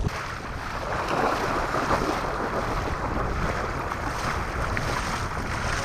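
Steady wind blowing across the microphone, a continuous rushing hiss with some low buffeting rumble.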